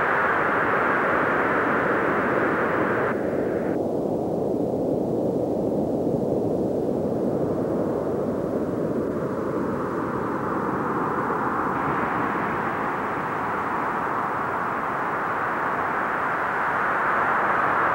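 Steady rushing noise with a faint tone that slowly falls in pitch in the middle of the stretch. Its character changes abruptly about three seconds in and again near the end.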